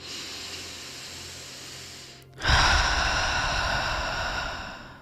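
A person's deep breathing, as in a breathwork exercise: a breath drawn in for about two seconds, a brief pause, then a louder breath let out for about two seconds.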